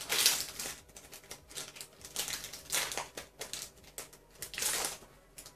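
Foil booster pack wrapper crinkling and rustling as it is handled, in several short bursts; the loudest is at the very start, with more about halfway through and near the end.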